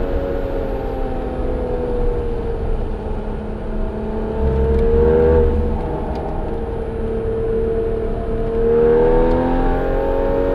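Porsche 981 Cayman S's flat-six engine through a Soul Performance aftermarket exhaust, driving up a mountain grade. The engine note dips, climbs again about four seconds in, then rises once more near the end as the throttle comes on.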